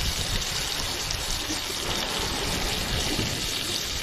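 Sea waves breaking and washing against jetty rocks, a steady rushing wash of surf.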